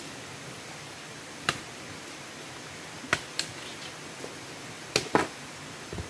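Machete blade striking a wooden pole: one sharp knock, then two quick pairs of knocks, over a steady hiss.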